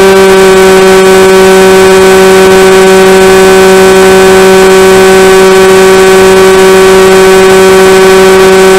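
Electric motor and propeller of an AR Wing RC flying wing, heard from its onboard camera, running at steady throttle: a loud, even buzz held at one pitch.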